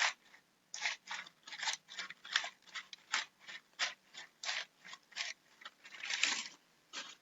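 Foley footsteps made by rubbing or crunching a handheld prop in a rhythm, a dozen or so short scraping strokes at about two a second, with one longer stroke near the end, imitating an animal walking and hopping.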